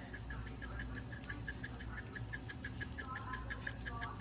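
A spice container worked over raw chicken thighs while seasoning them: a quick, regular run of light ticks, about six a second.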